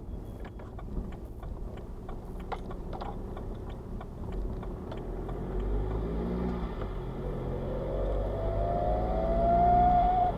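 BMW 116d's 2.0-litre N47 four-cylinder diesel driving, with a few light ticks early on, then a whine that rises in pitch and grows louder with the revs before cutting off sharply at the end. This is the unexplained cold-weather noise, which garages suspect is a loose piece of metal in the exhaust left after the DPF was removed.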